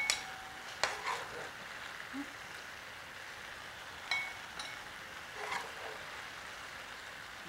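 A spatula clinking and scraping against a glass serving bowl and an electric skillet as food is served: a handful of short clicks, two of them (about the start and about four seconds in) ringing briefly like glass. Under them runs a faint steady sizzle from the skillet.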